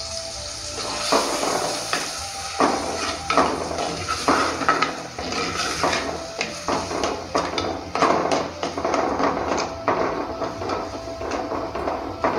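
Metal spoon scraping and knocking against the inside of a clay cooking pot as a thick ground masala paste is stirred, in irregular strokes starting about a second in.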